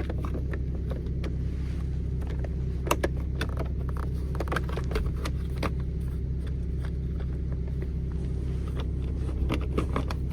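Plastic steering-wheel trim and paddle-shifter parts clicking and knocking as they are pushed into place, over a steady low hum.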